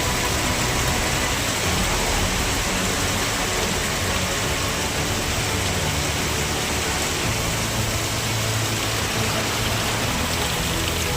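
Heavy rain falling steadily, an even hiss with a low rumble beneath it.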